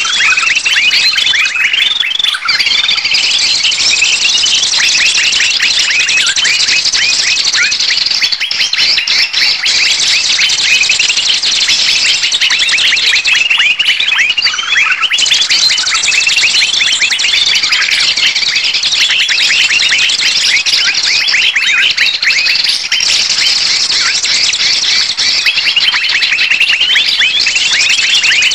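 Bird-lure recording of many small birds in a noisy, agitated chorus: rapid high-pitched chirps and chatter overlapping without a break. It is the kind of 'ribut' flock commotion that trappers play to draw birds in.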